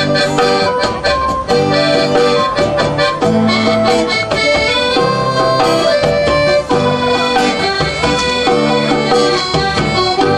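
Instrumental background music, with sustained chords over a plucked rhythm.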